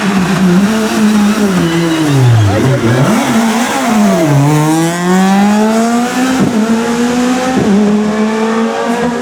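Rally car engine coming off the throttle and dropping in revs, then accelerating hard up through the gears, with a brief dip in revs at each of two quick gear changes.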